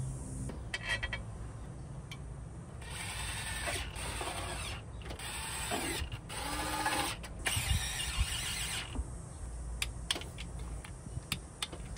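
Ratchet wrench clicking in about four runs of a second or two each, with short pauses between them, as bolts are run in on the engine; a few separate clicks and knocks follow near the end.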